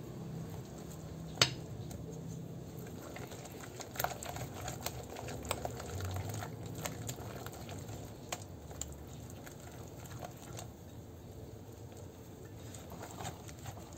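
Whisk stirring thick cake batter in a glass bowl: a steady soft squelching with many light clicks of the whisk against the glass, and one sharper knock about a second and a half in.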